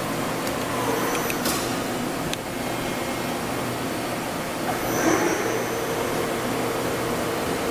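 Doosan DBC-130L-II CNC horizontal boring mill running with a steady machine hum. About five seconds in, the spindle spins up to 500 rpm and a steady whine joins the hum. Two light clicks come in the first half.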